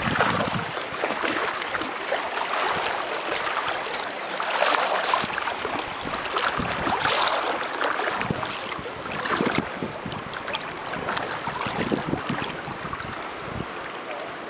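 Water splashing and sloshing close by, continual and uneven, as a dog paddles through a creek.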